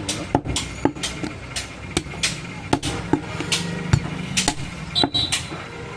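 Butcher's cleaver chopping a goat leg into pieces on a wooden chopping block: rapid, irregular sharp chops, about three a second.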